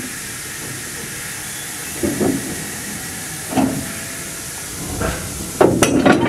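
Steam locomotive hissing steadily, with two short knocks a few seconds apart and then a cluster of sharp clanks near the end as its coupler closes on a wooden coach's coupler.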